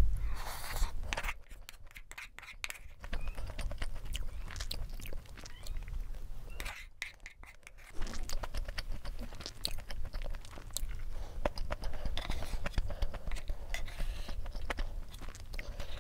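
Close-miked chewing of kimchi fried rice, with short clicks of a spoon tapping and scraping the bowl, over a steady low rumble.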